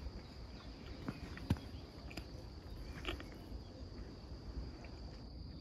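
Footsteps crunching on a dry dirt track: a few scattered steps and light clicks, the sharpest about a second and a half in. Under them runs a low wind rumble and a steady high-pitched hum.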